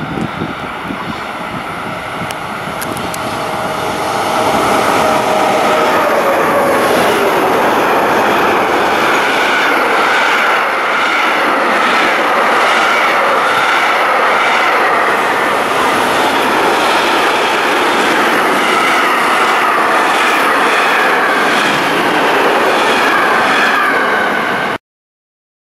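Freight train hauled by electric locomotives passing at speed: a falling whine as it arrives, then a long, loud steady rumble with a rhythmic clatter of wagon wheels over the rails. The sound cuts off suddenly near the end.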